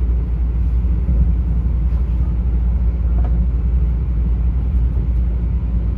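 Vande Bharat Express train running steadily along the track: a loud, even low rumble.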